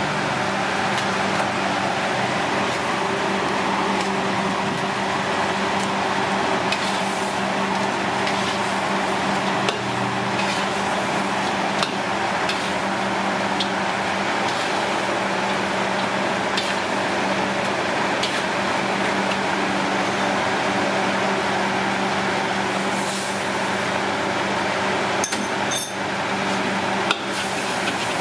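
Steady hum of a busy food-stall kitchen, with scattered clinks and knocks of dishes and utensils, a few close together near the end.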